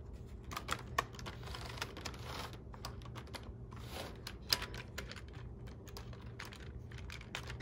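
Light, irregular clicks and taps of an HO-scale Big Boy steam locomotive model and its tender being handled and set onto the rails by hand, the metal wheels clicking onto the track, over a faint low hum.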